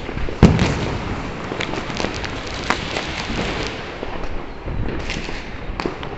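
Firecrackers and fireworks going off all around: one loud bang about half a second in, then a steady crackle of many distant pops and bangs.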